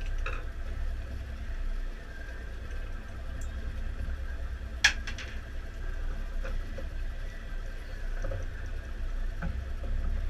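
Steady low rumble of a sportfishing boat at sea, with a single sharp click about five seconds in.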